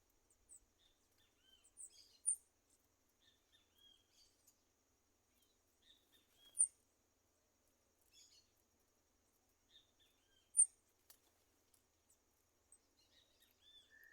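Several wild birds calling in short chirps: a sharp, very high note repeats three times about four seconds apart, with softer, lower chirps scattered between. A faint steady high hum, like insects, runs underneath.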